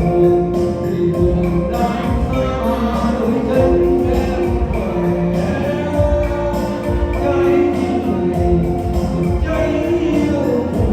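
Music: a song with a steady beat and held melody notes.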